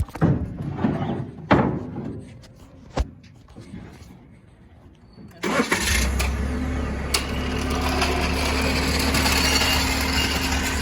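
A few sharp knocks and clanks, then a vehicle engine starts about five and a half seconds in and settles into a steady idle.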